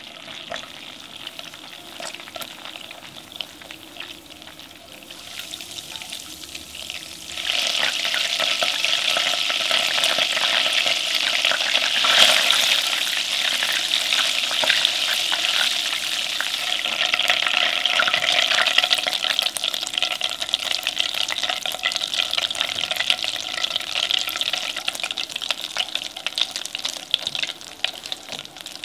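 Butter sizzling and crackling as it boils in a saucepan while being stirred with a silicone spatula, being cooked down into brown butter as its milk solids start to brown. The sizzle grows much louder about a quarter of the way in, then thins out into separate pops near the end.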